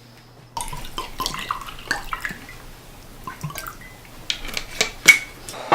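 Irregular clicks and knocks with splashing, watery noise, starting about half a second in, and one sharp, loud knock about five seconds in.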